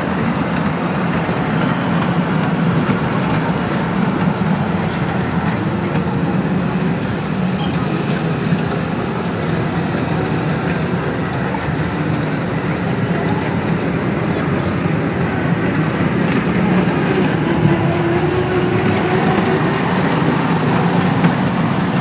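Kiddie train ride running on its rails: a steady rolling noise of the wheels and drive, heard from aboard the ride, with people's voices faintly behind.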